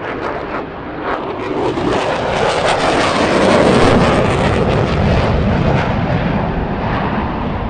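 Military jets flying over in formation: a loud jet-engine rush that builds to a peak about three to four seconds in and then holds.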